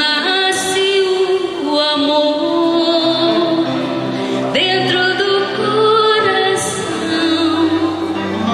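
A woman singing a religious song into a handheld microphone, amplified through loudspeakers, holding long notes with vibrato.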